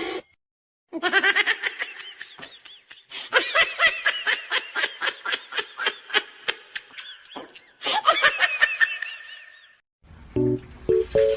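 A person laughing in quick, high-pitched repeated bursts, pausing briefly about seven seconds in; music starts near the end.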